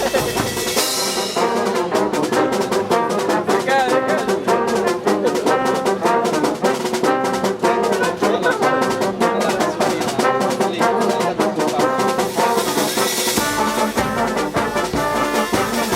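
Brass orchestra of trumpets and trombones playing a tune together, with a bright crash-like burst about a second in and again near the end.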